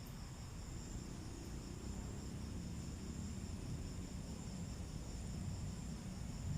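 Insects, crickets by the sound of it, trilling steadily at two high pitches over a low, even rumble.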